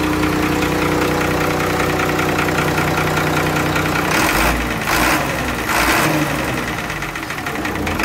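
Diesel engine of a 2003 Ashok Leyland bus, running again after standing about ten years, idling steadily. About halfway through it is revved in three short bursts, then drops back.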